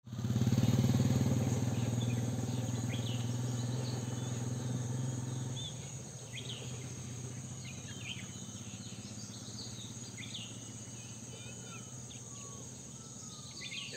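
Outdoor rural ambience of insects buzzing steadily and birds chirping, with a few sliding whistled calls in the second half. A low steady drone is the loudest sound for the first six seconds or so, then stops.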